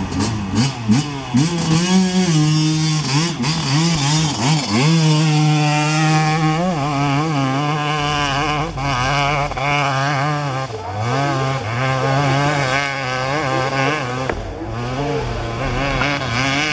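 Hill-climb motorcycle engine revving hard under throttle, its pitch rising and falling again and again, with a sharp climb about five seconds in.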